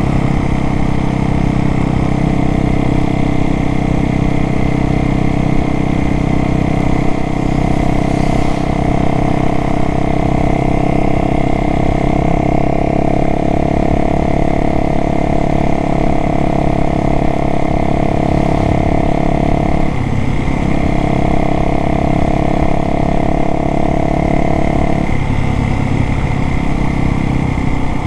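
Single-cylinder four-stroke dirt bike engine running at a steady speed. Its pitch wavers briefly about twenty seconds in and shifts again about twenty-five seconds in.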